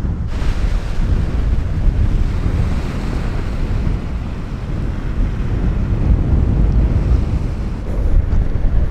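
Strong wind buffeting the microphone in a steady low rumble, with waves washing onto a pebble lakeshore.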